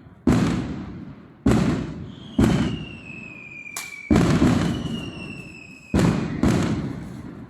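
Fireworks going off in quick succession: about seven loud booms, each echoing away, with a sharp crack in the middle. Two thin whistles fall slowly in pitch between the bangs.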